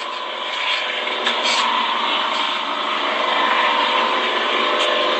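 A steady engine running, with a dense even hum that slowly grows louder from about a second in, heard through the narrow, thin sound of a phone live stream.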